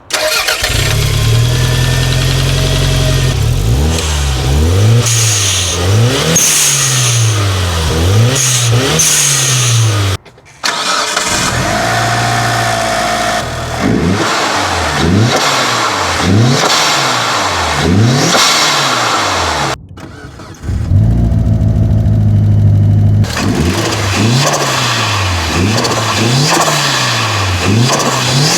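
Performance car engines heard from inside the cabin under hard acceleration, the engine note climbing through each gear and dropping at every shift, in three clips joined by abrupt cuts about ten and twenty seconds in. Several short hissing bursts come at shifts about five to nine seconds in.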